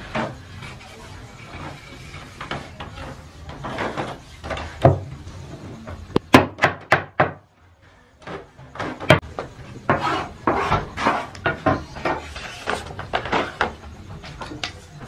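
Metal baking trays knocking and clattering as they are handled and stacked, a run of irregular sharp clanks with a short pause about halfway through.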